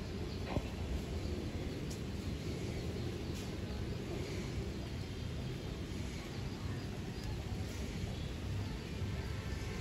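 Steady outdoor background noise, mostly a low rumble, with a couple of faint short high sounds around two and three and a half seconds in.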